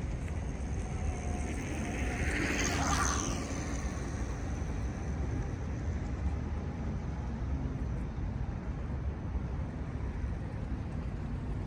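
Outdoor ambience: a steady low rumble like distant traffic, with a brief rising swish about two to three seconds in.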